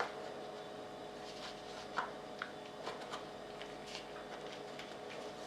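Quiet handling noises: a few soft clicks and light taps as the thermal monocular and its accessories are handled, over a faint steady hum.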